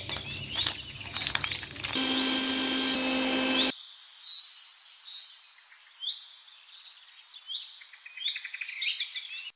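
Small birds chirping over and over in short high calls. In the first two seconds there are clicks and knocks, then a steady mechanical hum about two seconds in that cuts off suddenly a couple of seconds later.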